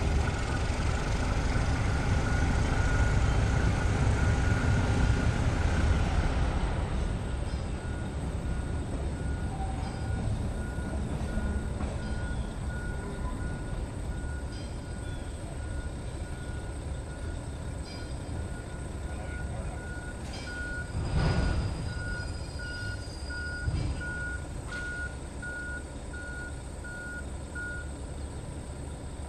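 Diesel engine of an MLW S-13u end-cab switcher locomotive running with a low rumble as it moves boxcars; the rumble is stronger in the first several seconds. A reversing-alarm beeper sounds at one pitch, about once a second, until near the end, and a short louder burst comes about 21 seconds in.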